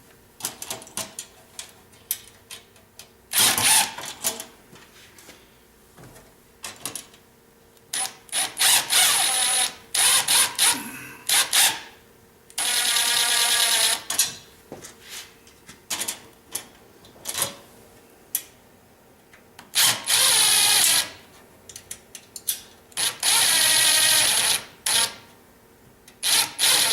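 Cordless drill driving Phillips-head bolts into lock nuts, whirring in several short runs of a second or so, with clicks and taps of the hardware between runs.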